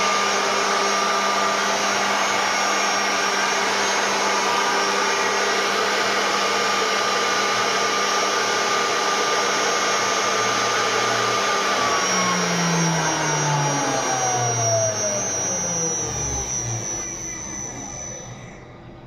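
Mehta LX-1325 CNC router spindle running at a steady speed with a loud, even whine. About twelve seconds in it is switched off and spins down, its pitch falling steadily and its sound fading over the last several seconds.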